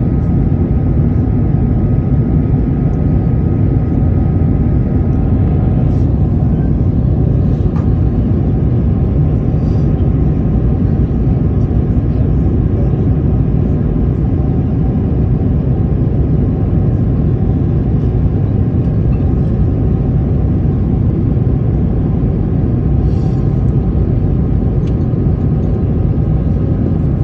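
Airbus A220's Pratt & Whitney geared turbofan engines and airflow making a steady, unchanging rumble with a faint steady whine above it, as heard inside the cabin.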